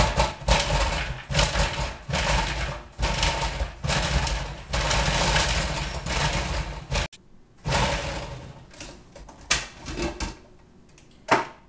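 Food processor with an S blade pulsed in short bursts, about one a second, chopping onion and garlic; it stops suddenly about seven seconds in, followed by a few light knocks.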